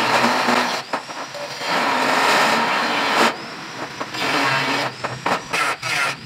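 Angle grinder cutting steel, a harsh grinding noise that breaks off twice, each time followed by the disc's whine winding back up. Near the end the cutting comes in short, quick stretches.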